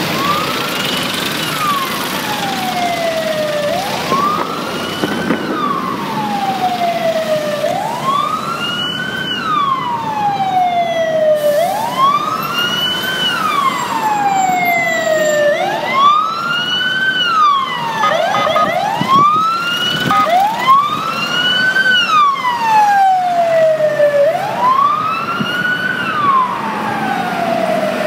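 Fire engine sirens wailing, each cycle a quick rise and a slower fall repeating about every four seconds. A second siren overlaps out of step partway through, over steady traffic noise.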